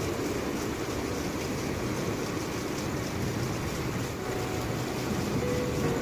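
Heavy rain pouring steadily: an even rushing hiss with a strong low rumble underneath.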